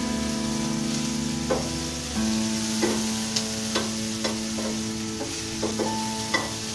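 Sliced tomato, green chilli and onion sizzling in a non-stick frying pan over a gas flame while a spatula stirs them, with repeated sharp taps and scrapes of the spatula against the pan.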